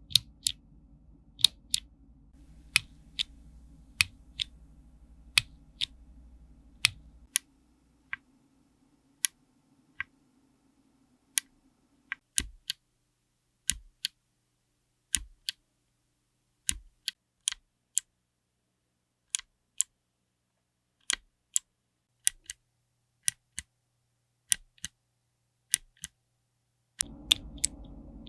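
Key presses on a mechanical keyboard fitted with clicky switches, each one a sharp, separate click, about one or two a second.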